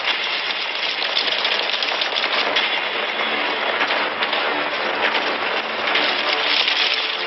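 Film sound of a large armoured army charging: a dense, steady din of massed footsteps and clattering armour.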